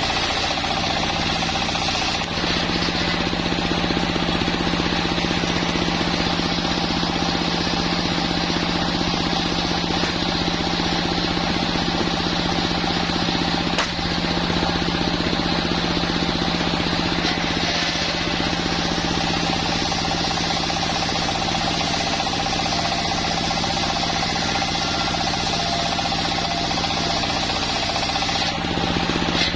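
Sawmill machine running steadily, engine and saw blade together, while sawing a waru log. The sound shifts slightly about two seconds in and again near the end.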